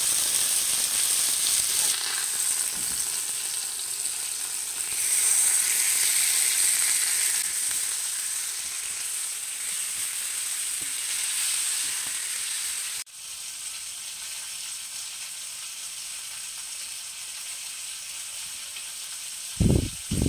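Chicken breasts sizzling as they fry on a flat griddle pan: a steady hiss, louder for a couple of seconds about five seconds in, that drops suddenly to a quieter sizzle about thirteen seconds in. Near the end come a couple of short, loud bumps.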